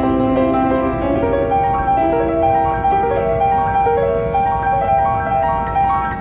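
Grand piano played solo, a classical piece of held, overlapping notes changing about every half second, over a steady low background rumble.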